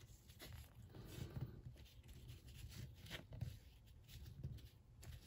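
Faint handling noises of a plastic action figure being posed by hand: scattered light clicks and rubs as its joints and arms are moved.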